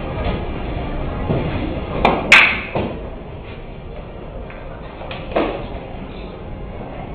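Billiard balls clacking over a steady low rumble: a quick cluster of sharp knocks about two seconds in, the loudest a bright click, and one more knock about five and a half seconds in.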